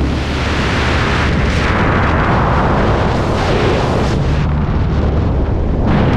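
Loud wind rush buffeting the helmet microphone in the airflow outside a small high-wing propeller plane, over the steady low drone of the plane's engine and propeller.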